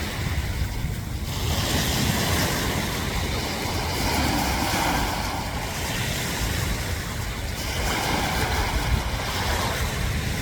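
Sea waves washing in and breaking, swelling and easing every few seconds, with wind buffeting the microphone.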